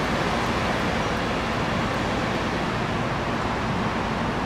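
Amtrak stainless-steel passenger cars, among them the business car Pacific Cape, rolling past on the rails: a steady rumble of wheels and trucks.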